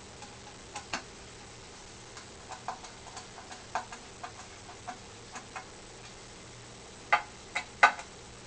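Irregular small clicks and taps of parts being handled and fitted together by hand, with three louder, sharper knocks about seven to eight seconds in.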